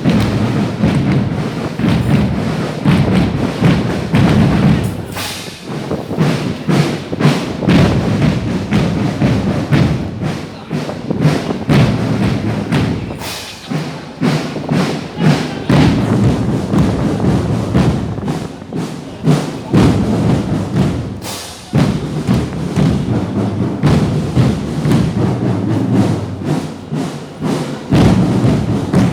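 Percussion music: drums beaten in quick, steady strokes with heavy thuds.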